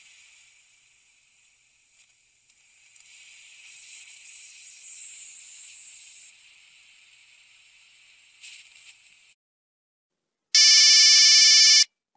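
Faint high hiss for about nine seconds, then silence, then one loud, buzzy single-pitch electronic beep lasting just over a second from a Nokia 3315's monophonic ringtone.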